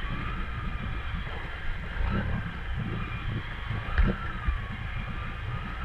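Can-Am Renegade ATV engine running, its pitch slowly rising and falling as it is throttled while the quad sits stuck in deep swamp water, with a single knock about four seconds in.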